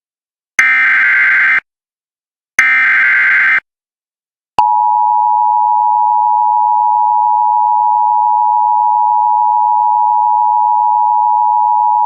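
Emergency Alert System signal: the last two of three harsh, screeching SAME header data bursts, each about a second long and a second apart. About four and a half seconds in, the steady two-tone EAS attention signal begins and runs on. Together they open a National Weather Service flood warning.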